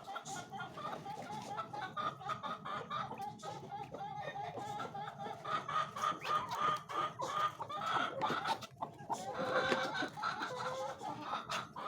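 A flock of chickens clucking, many short overlapping calls running together, growing a little louder in the second half.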